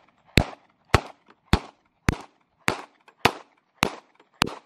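Glock 23 .40-calibre pistol fired eight times in a steady string, a little under two shots a second.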